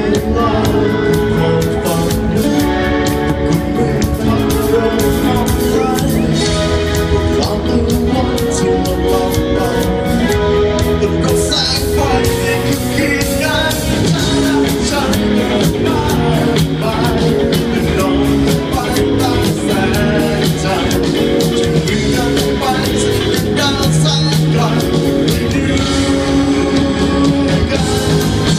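A live rock band playing a song: a male singer over electric bass, keyboards and drums, amplified through the stage PA.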